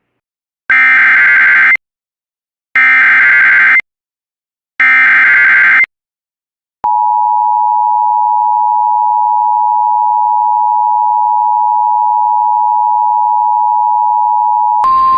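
Emergency Alert System encoder sending three SAME header data bursts, harsh warbling screeches about a second long and a second apart, which carry the coded alert. About seven seconds in, the EAS two-tone attention signal begins, a steady dual-tone sound that holds for about eight seconds. Near the end it switches to a single steady tone over static.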